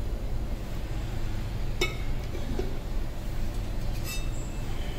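Two light metallic clinks, about two seconds and four seconds in, of a metal utensil against the brass kadhai of milk, the second ringing briefly, over a steady low hum.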